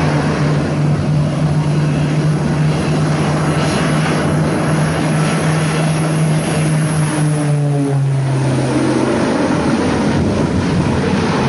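Propeller aircraft engines running loud and steady, a low drone with a rushing noise above it; the drone shifts slightly lower in pitch about eight seconds in.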